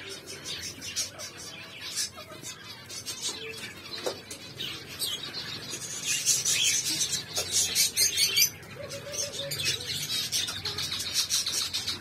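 A flock of zebra finches chirping, with many short high calls overlapping and growing busiest past the middle.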